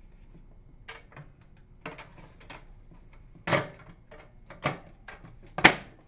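Microwave oven door panels being pressed together and snapped into place: light clicks and handling knocks, then three sharp snaps about a second apart, the last the loudest.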